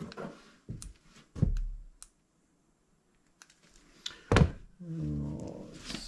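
Several dull thumps and knocks, the loudest about a second and a half in and again just past four seconds, then a low, drawn-out vocal sound near the end.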